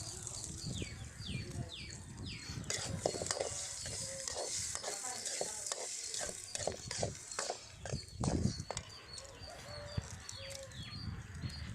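Spatula clicking and scraping in a pan as eggs are scrambled, a quick irregular run of strokes through the middle. Short, falling high bird chirps repeat behind it.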